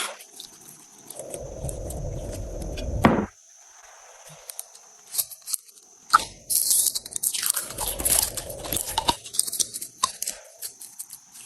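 Slime being squeezed and worked by hand: irregular crackling and popping clicks, with two longer, heavier squishing presses, one in the first few seconds and one past the middle.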